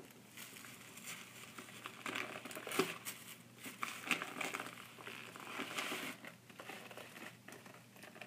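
Tissue paper crinkling and rustling in a paper gift bag as a small child pulls and handles it, in irregular bursts.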